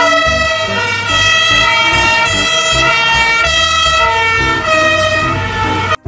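German fire engine's two-tone siren sounding continuously, its pitch switching back and forth between two notes.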